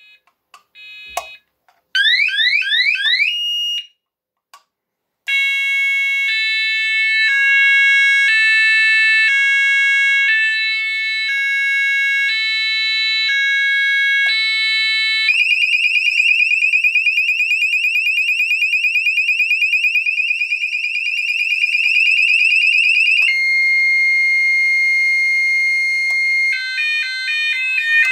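Sonos DC multi-tone fire alarm sounder (Chubb/Esser) stepping through its selectable tones with short gaps between: quick rising sweeps, then a slow two-note alternation for about ten seconds, a fast pulsing tone, a steady single tone, and near the end a rapid two-note alternation.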